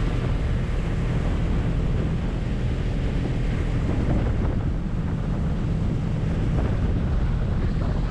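Speedboat running at speed, with steady wind blowing on the microphone.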